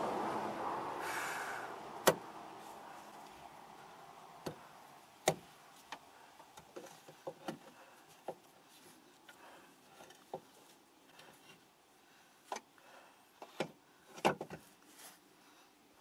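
Hand tools and metal parts handled under a car during a starter motor install: a dozen or so scattered sharp clicks and knocks, irregularly spaced. A rushing noise fades away over the first two or three seconds.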